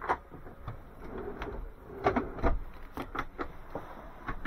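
Push-button cupboard latches and cabinet doors in a camper van being pressed, opened and shut: a scattering of short clicks and knocks, the sharpest and loudest near the end.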